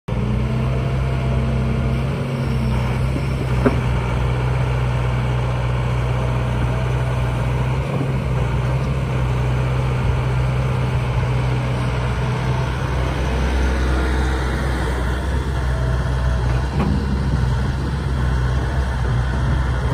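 Hitachi ZX180LC-5N excavator's four-cylinder diesel engine running steadily while the arm and bucket are worked and the upper structure swings, with one sharp click about three and a half seconds in.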